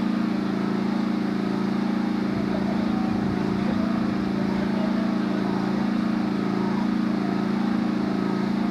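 A motor vehicle's engine running steadily, a constant low drone whose pitch wavers in a slow regular cycle about once a second.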